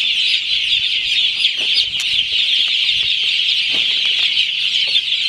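A large flock of broiler chickens peeping and chirping together in a dense, steady, high-pitched chorus, with a few faint knocks underneath.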